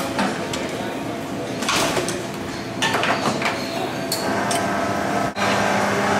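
Metal clacks and knocks as a portafilter is handled and locked into a commercial espresso machine. About five seconds in the machine starts brewing with a steady hum as the shot runs into a steel jug. Background café chatter throughout.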